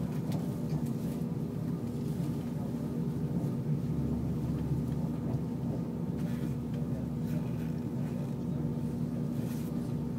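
Steady running noise heard inside an ICE high-speed train travelling at speed: an even low rumble from wheels and track, with a faint steady hum over it.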